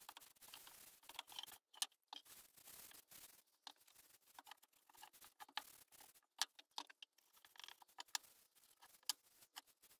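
Faint rubbing of a cloth rag on wood with scattered light clicks and taps: Danish oil being wiped onto a wooden bench hook while the piece is handled on the workbench.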